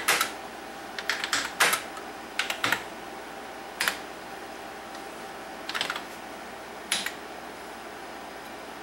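Keys being struck on a TRS-80 Model 4 keyboard. The clicks come irregularly: a quick run in the first two seconds, then single strokes a second or two apart.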